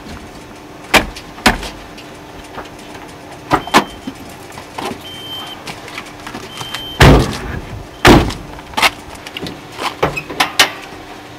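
Pickup truck cab doors opening and slamming shut, with sharp clicks and knocks from the handles and latches. The two loudest are heavy thuds about a second apart, a little past halfway. Near the end come a few lighter clicks at the front of the truck as the hood latch is worked.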